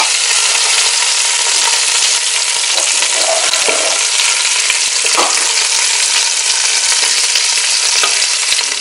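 Chicken drumsticks sizzling in hot oil in a stainless steel pot, a loud, steady hiss. A wooden spatula stirs them, scraping against the pot a few times.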